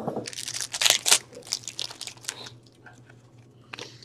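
Trading card pack wrapper being torn open and crinkled: a run of crackling rustles over the first two and a half seconds, then a brief rustle near the end.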